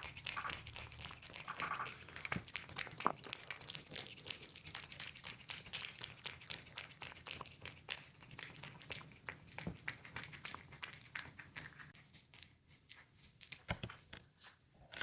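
A kitten eating, with quick, irregular wet smacking and chewing clicks; they thin out and go quieter about twelve seconds in.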